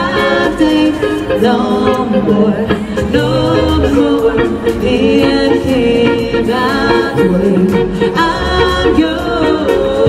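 Live band playing a song: women singing lead and backing vocals over electric guitar, bass and drums.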